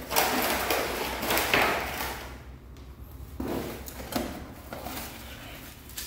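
Rustling and scraping from boxed hand tools and their packaging being handled and moved, loudest in the first two seconds, then a few softer knocks and rustles.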